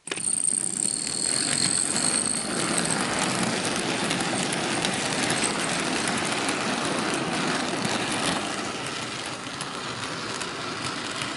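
Bachmann model train locomotive running along the layout track: a steady electric motor whir and wheel rumble. A high whine is heard in the first couple of seconds.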